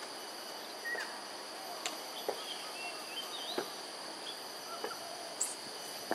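Steady, high-pitched insect drone, with scattered short chirps and a few sharp ticks over it.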